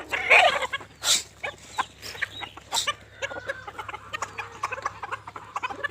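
Desi (gavran) chickens clucking softly while feeding on scattered grain, among many short ticks and a couple of louder sharp clicks.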